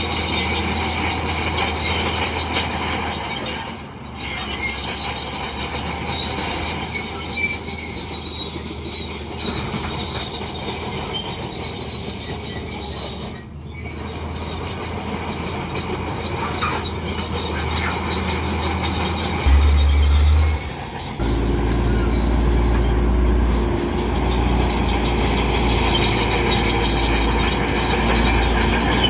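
Crawler bulldozer working: its diesel engine runs steadily while the steel tracks give a continuous high-pitched squeal. About two-thirds of the way through, the sound changes abruptly to a deeper, steadier engine note.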